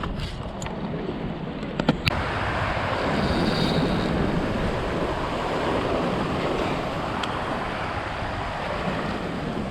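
Surf washing against the jetty rocks, with wind on the microphone: a few sharp clicks in the first two seconds, then a steady rushing noise.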